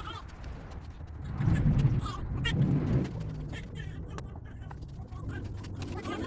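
Vinyl electrical tape being pulled off the roll and wrapped around a bundle of spliced wires, with small clicks and scrapes. A louder low rumble of hands working the bundle comes about a second and a half in and lasts a second or two.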